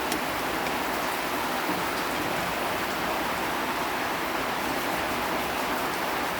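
Steady, even hiss with scattered faint crackles and no break.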